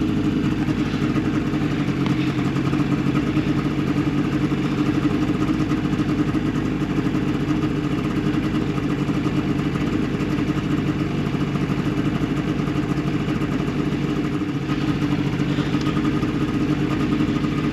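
Snowmobile engine running steadily, holding one even pitch with no revving.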